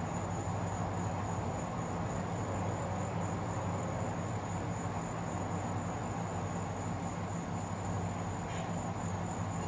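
Steady outdoor night ambience: a continuous high-pitched insect trill over a constant low hum, with no distinct events.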